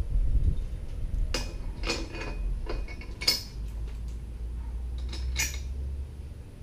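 Stainless steel bolts and washers clinking against a metal jack plate bracket as they are fitted by hand: a few scattered sharp metallic clinks, the loudest about three seconds in, over a low rumble.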